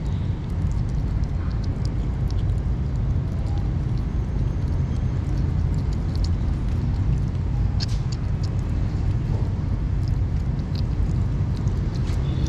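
Kittens chewing and lapping wet cat food from a plastic tub, heard as many small scattered clicks of eating over a steady low rumble.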